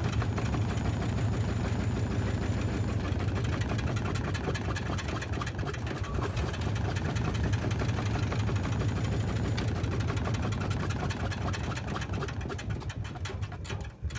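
Washing machine on its spin cycle, loaded with wet towels: a steady low motor hum under rapid, continuous rattling and knocking from the drum. The sound dies away near the end.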